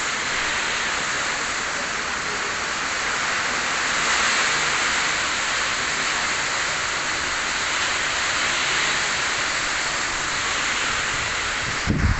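Heavy typhoon rain pouring down in a steady, dense hiss that swells slightly a few seconds in. A brief low thump comes near the end.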